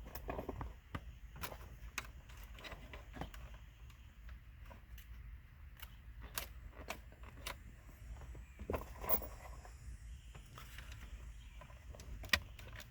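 Small screws being driven back in by hand around a truck's dash radio bezel: scattered light clicks and taps at irregular intervals, over a faint steady low hum.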